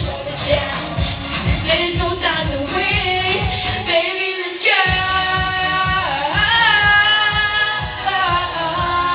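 Pop song playing: a singer's voice with held and sliding notes over a steady beat. The beat drops out briefly about four seconds in, then comes back.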